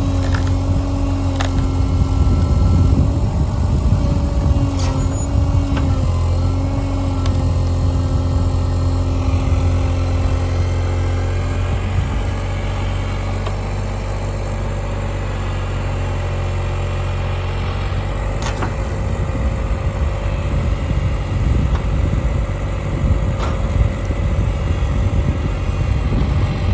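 Cat 303.5 mini excavator's diesel engine running steadily, with a whine that wavers in pitch for about the first twelve seconds and a few sharp knocks scattered through.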